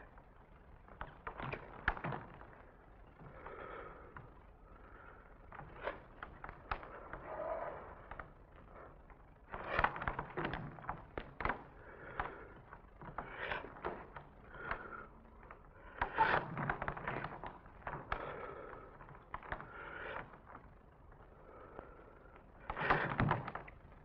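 Bare feet knocking and scraping on a wooden stage floor in an irregular string of thuds and slides, with louder clusters near the middle and just before the end.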